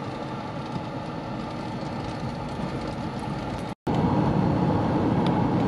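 Steady vehicle noise from a car driving on the road, heard from inside the cabin. It drops out for a moment about four seconds in and comes back louder.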